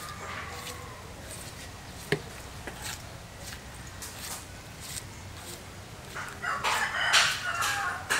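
Rooster crowing; the loudest crow comes near the end and lasts about two seconds. A single sharp knock about two seconds in.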